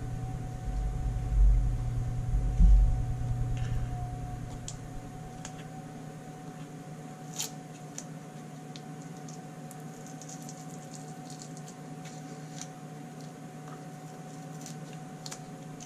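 Handling noise at a bench: a few low thumps in the first three seconds, then faint crinkles and small clicks as white wrapping is peeled off a wooden revolver grip panel. A steady hum runs under it all.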